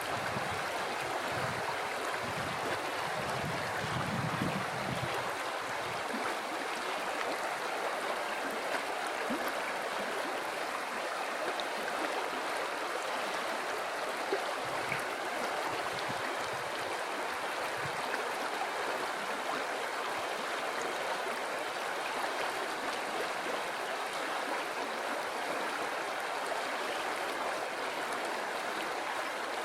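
River water flowing steadily over rocks: an even, continuous rushing with a little low rumble in the first few seconds.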